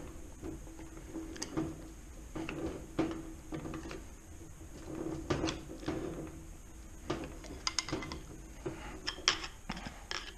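Steel gearbox parts of a manual transaxle clicking, knocking and scraping as a gear is worked loose on its shaft by hand. The clicks and knocks come irregularly, several times a second at the busiest moments.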